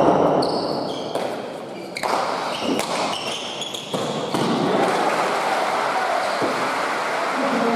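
Basque pelota rally in an echoing indoor court: several sharp smacks of the ball off hands and walls, the loudest at the very start, then about four more spaced a second or two apart, each ringing on in the hall.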